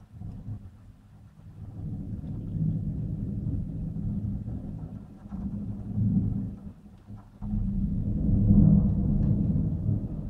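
Thunder rumbling in rolling peals, with a louder peal that starts suddenly about seven and a half seconds in.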